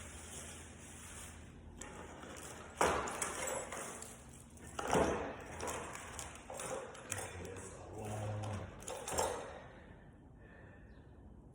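Metal door-lock hardware being handled: sharp clinks and knocks as parts and screws are picked up and set down, the three loudest about three, five and nine seconds in.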